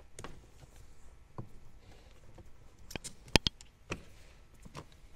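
Handling noises from wrapping electrical tape around a truck's wiring harness: scattered soft clicks and taps, with a quick run of sharp snaps a little past halfway.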